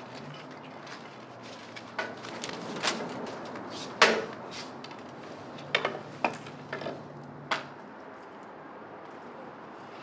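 A string of sharp knocks and clacks from hard objects, about nine in all, spread unevenly between about two and eight seconds in, the loudest about four seconds in.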